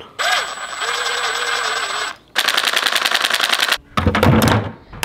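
Cordless impact driver tightening the screw of a worm-drive hose clamp onto a hose barb. It spins steadily for about two seconds, then breaks into a fast, even rattle of impacts for about a second and a half as the clamp draws tight. A brief loud, lower-pitched sound follows near the end.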